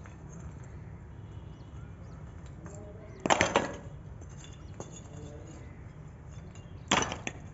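Broken bricks clattering as they are tossed onto a pile of brick rubble, twice: about three seconds in and again near the end.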